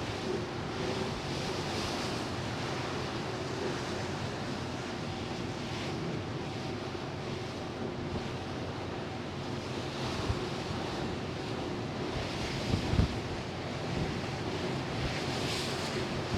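Sea wash and wind heard from the ferry Hamayuu as it sails, the rush swelling every couple of seconds, with wind on the microphone. A faint steady hum from the ship runs beneath it. A brief thump comes about three-quarters of the way through.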